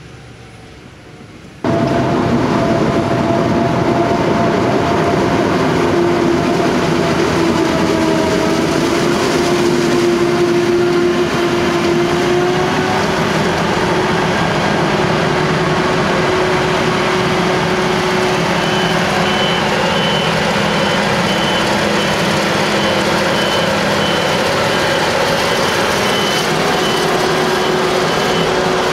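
Claas Jaguar 970 forage harvester chopping maize, a loud steady machine noise with a whine in it, alongside a tractor hauling the silage trailer. The noise comes in suddenly nearly two seconds in. Over the last third a series of short, high beeps repeats.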